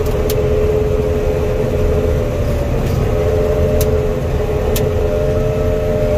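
Combine harvester running steadily while cutting soybeans with its 25-foot head: a constant low rumble under a steady whine, with a few faint ticks.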